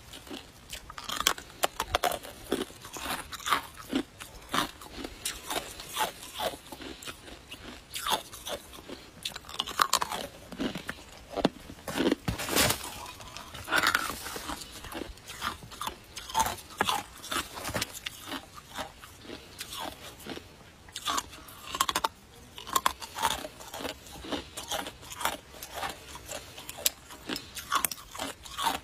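Icicles being bitten and chewed: a dense, irregular run of sharp crunches and cracks as hard ice breaks between the teeth.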